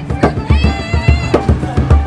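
Live percussion-driven music with steady drum beats. A high wavering note sounds over the drums for about a second in the middle.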